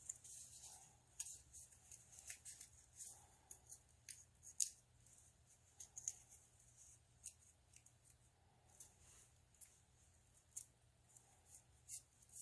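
Faint, irregular scratching and small clicks of craft wire being worked through and twisted against a piece of cardboard.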